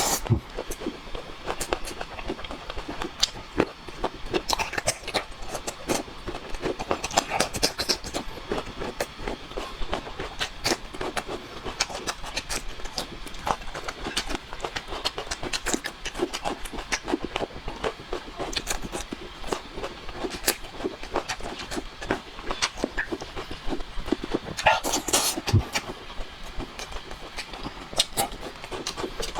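Close-up eating sounds: wet chewing and lip-smacking with dense, irregular clicks and crackles from a mouthful of food.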